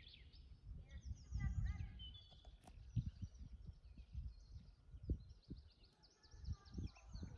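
Small birds chirping and trilling in quick repeated phrases, over an irregular low rumble of wind buffeting the microphone.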